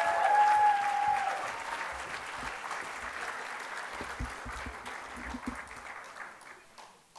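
Audience applauding, with a voice calling out over the clapping in the first second or so. The applause gradually dies away and stops just before the end.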